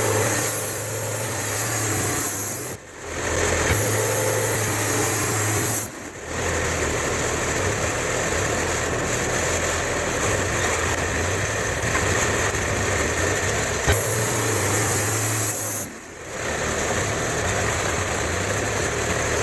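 Engine-driven portable sawmill running steadily while milling poplar boards. It breaks off briefly about 3, 6 and 16 seconds in, and its tone shifts a little between sections.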